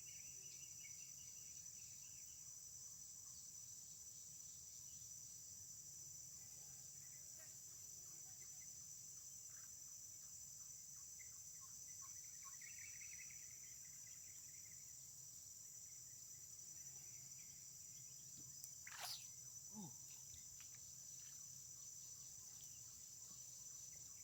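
Faint, steady high-pitched chorus of crickets, with a few scattered chirps. Two short sweeping sounds come about five seconds before the end.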